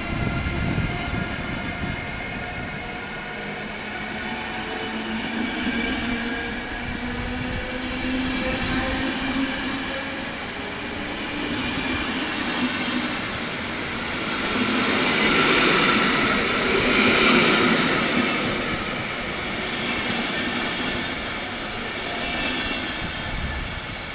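Locomotive-hauled passenger train of sleeper and couchette carriages rolling past along the platform, wheels rumbling and hissing on the rails. There is a high, slowly falling whine early on, and the rolling noise swells to its loudest about two-thirds of the way through before easing off as the train draws away.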